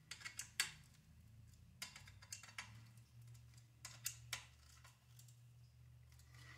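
Faint, scattered clicks and light taps of a hex wrench on the small screws of an RC buggy's bolted-up rear end as they are checked for tightness, over a low steady hum.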